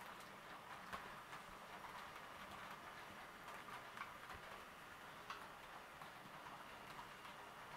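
HO-scale model passenger train running on the track: faint, irregular clicking of the wheels over the rail joints over a quiet steady whir.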